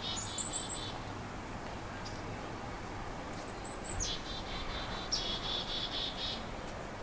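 Bird calls: a buzzy, grating call lasting about a second at the start and again about five seconds in, with thin high chirps and a quick falling note between them.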